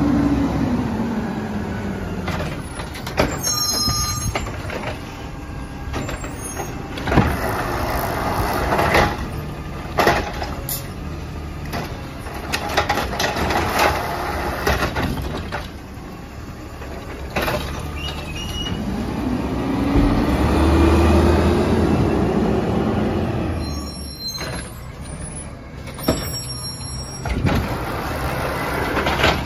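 Peterbilt 320 automated side-loader garbage truck running on compressed natural gas, its engine rumbling steadily while the hydraulic arm lifts and dumps trash carts. Carts knock and bang sharply against the truck many times, and the engine revs up once about twenty seconds in.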